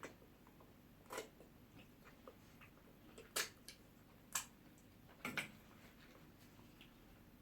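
Quiet eating sounds from people eating ogbono soup with pounded yam: scattered sharp clicks and smacks, about half a dozen, two of them close together a little past the middle, over a faint room hiss.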